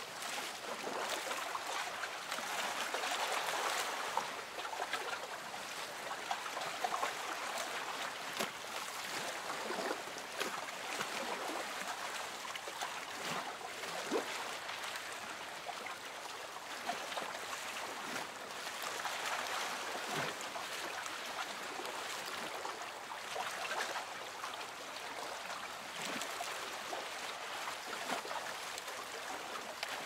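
Small sea waves lapping and sloshing against a small boat's hull: a steady wash of little splashes and trickles that swells and eases gently, with no surf roar.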